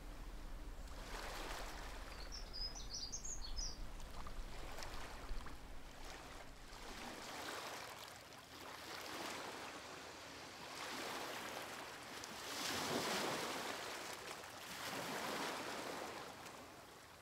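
Sea waves washing in, the noise swelling and ebbing every couple of seconds, with a brief cluster of high chirps about two or three seconds in.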